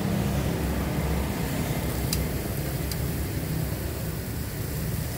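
Steady low rumble of outdoor street background noise, with two light metal clicks about two and three seconds in from grill tongs handling the skewers.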